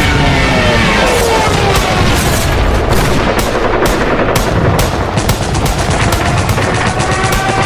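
Sound-effect gunfire: a rapid string of shots, about three a second, following the rumble of an explosion at the start, with background music.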